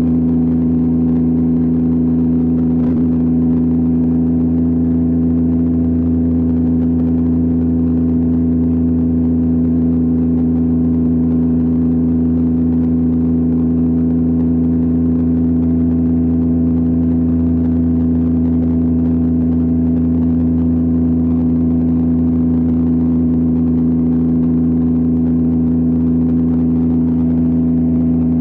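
Yamaha R9's 890 cc inline three-cylinder engine running at a steady, unchanging speed, with no revving or shifting.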